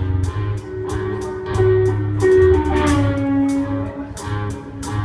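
Live rock band playing: electric guitars holding long ringing notes over drums, with cymbal strokes keeping a steady beat.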